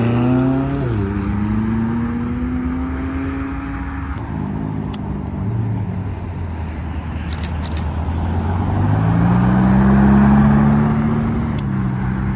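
Sports car engines driving past. One accelerates and shifts up about a second in, then runs on steadily. Another rises in pitch and is loudest near the end, with a gear change just after.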